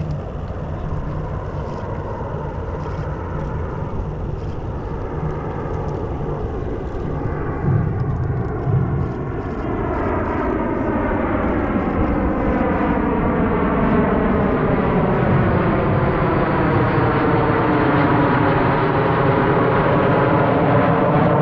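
Formation of four Kawasaki T-4 jet trainers flying over, a steady jet roar with a swirling, phasing sweep that grows louder from about halfway as they come overhead.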